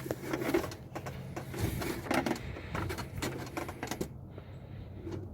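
Irregular clicks and knocks of hands working the plastic drain cock at the bottom of a Toyota Yaris radiator to open it and drain coolant.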